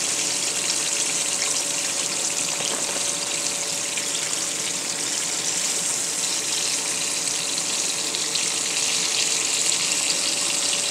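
Buttermilk-battered chicken tenders deep-frying in a pot of hot oil: a steady sizzling hiss. The tenders are fully cooked and floating, ready to come out.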